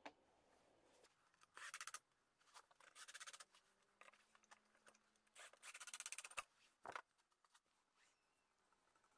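Cordless drill driving wood screws into a pine board, heard as three short bursts of fast rasping, with a couple of sharp knocks after the last one.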